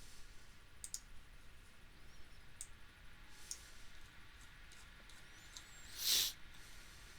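Scattered computer mouse clicks, one every second or so, at a low level. About six seconds in comes a short, louder rush of noise.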